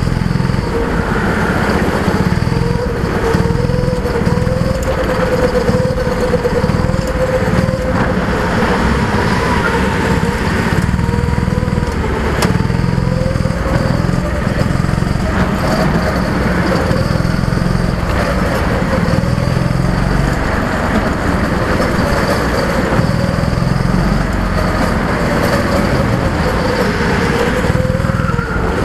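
A go-kart's small engine, heard on board while lapping. Its pitch swells and dips gently as the kart accelerates and lifts through the corners, over a steady low rumble.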